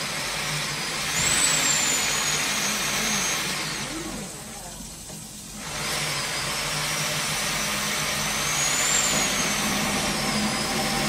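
Electric spring-cable drain-cleaning drum machine running, its motor whining steadily as it spins the cable down a clogged floor drain. It stops about four seconds in and starts up again a second and a half later.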